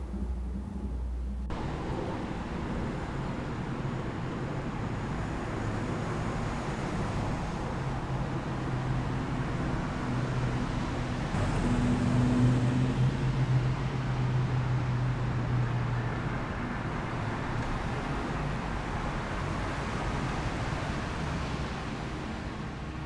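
Street traffic noise. A bus engine runs close by for a few seconds about halfway through, and it is the loudest part.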